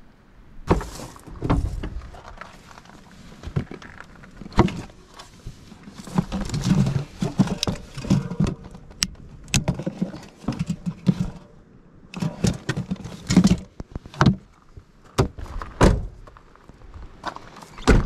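Handling sounds from a cooler and truck cab: aluminium beer cans knocking and clinking together as they are pulled out of the cooler, among a string of thumps and clicks from the lid and things being moved about.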